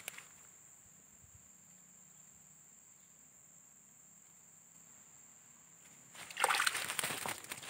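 Insects give a steady high-pitched chirr. About six seconds in, a loud crackling rustle starts and runs on.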